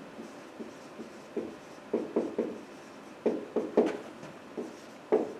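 Marker pen writing on a whiteboard: clusters of short strokes as letters are drawn, with pauses between words.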